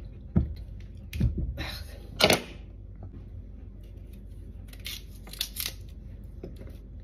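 A kitchen knife cutting a cassava root on a wooden board, with a few knocks in the first two and a half seconds, the loudest a little over two seconds in. Then short scratchy strokes around five seconds in as the knife peels the thick brown skin off a piece held in the hand.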